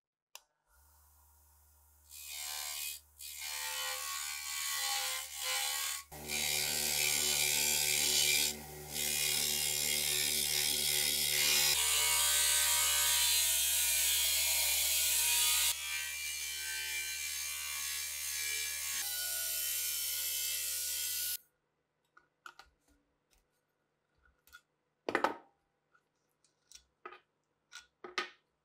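Electric bench grinder running with a brass wire wheel, a brass disc pressed against the spinning wheel to brush it clean: a steady motor hum under a loud scratchy brushing noise that comes in short spells from about two seconds in, runs continuously from about six seconds, and cuts off suddenly about 21 seconds in. After that, only scattered clicks as the wire wheel is handled and taken off the shaft.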